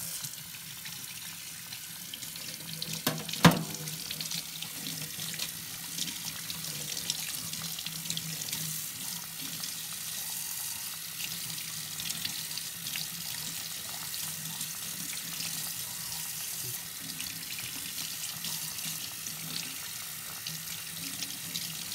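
Cold water running from a kitchen faucet into a stainless steel sink, splashing over hands as they rub and rinse raw geoduck. A single sharp knock about three and a half seconds in.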